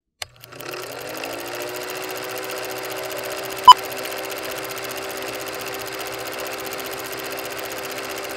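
Film projector sound effect: a click, then the projector whirring up to speed and running on with a steady fast rattle. About three and a half seconds in, a single short, loud countdown-leader beep.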